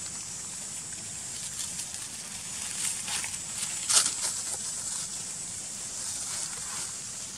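Dry leaf litter rustling and crackling as macaques move on it, the sharpest crackle about four seconds in, over a steady high insect drone.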